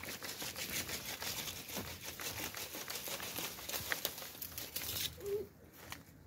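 Rustling and crackling in dry vegetation: a dense, irregular run of small crackles that dies down near the end.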